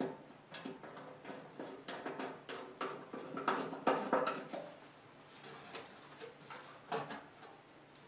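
Screwdriver and metal motor-mount hardware clicking and scraping against a sheet-metal blower housing as a furnace blower motor is fastened in place: a run of short taps and rubs over the first half, then fainter handling with one sharper click near the end.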